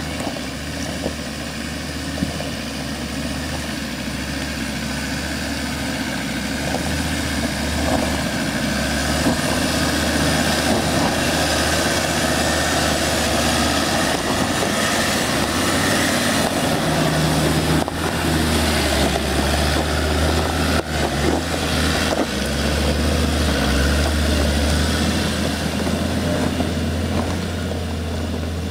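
Land Rover Discovery II engine pulling at low revs as the vehicle crawls slowly up a steep, rocky track, getting louder as it nears, with a few sharp knocks about two-thirds of the way through.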